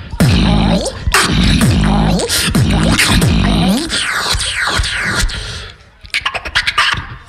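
Beatboxer performing a battle round into a handheld microphone through the PA: deep bass kicks with sliding pitched bass sounds and sharp snares. Just before the end it drops away briefly, then comes back as a quick run of sharp clicks.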